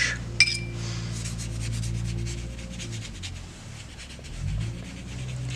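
Paintbrush rubbing on wet mixed-media paper, working freshly laid ink around, over a steady low hum.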